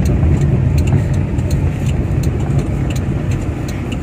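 Steady low rumble of road and engine noise of a moving car, heard from inside the cabin.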